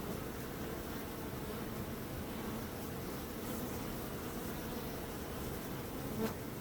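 Bees buzzing in a steady, even hum, with one buzz swelling briefly louder near the end.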